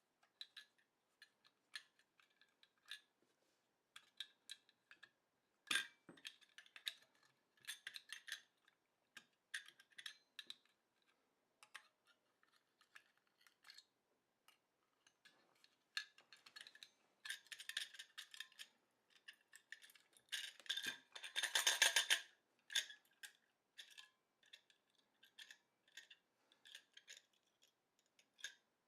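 Small metal parts and tools clicking, clinking and scraping as a hard drive is taken apart by hand, with a sharp knock about six seconds in and a longer scraping rattle about two-thirds of the way through.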